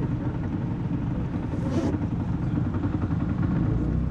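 Vehicle engine running with a steady low rumble, with a brief hiss about one and a half seconds in.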